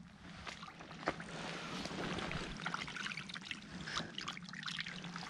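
Shallow water trickling out through a small channel over mud and sticks, a steady light hiss, with a few faint splashes and ticks as a hand reaches into the water near the end.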